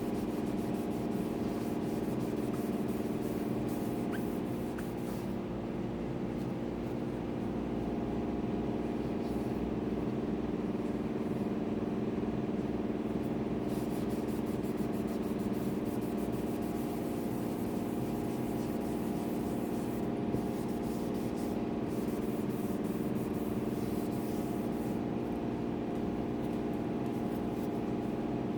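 A steady machine hum that holds one even pitch and does not change.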